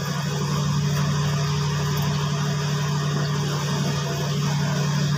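A running machine's steady low hum, even in pitch and level throughout, with a few faint light ticks over it.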